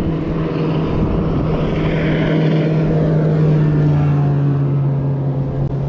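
Motorboat engine running past close by: a steady engine drone with a rush of water and engine noise that swells about two seconds in.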